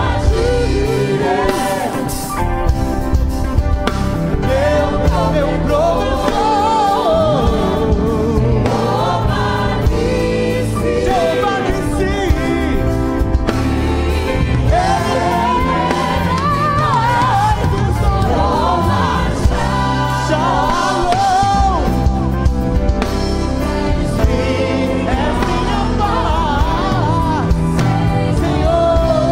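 A live worship band playing a gospel song: drum kit with cymbals driving the beat under singers carrying the melody.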